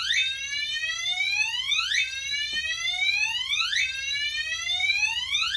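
Gentex Alert Commander 3 horn sounding a slow whoop tone: a rising sweep that climbs for nearly two seconds, cuts off at the top and starts again, three times. It is the alarm signal from the triggered carbon monoxide detector.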